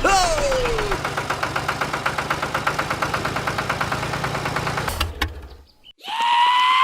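An engine running with an even chug of about six beats a second, opening over a falling whistle-like glide and cutting off about five seconds in. Near the end a rising whistle-like tone starts.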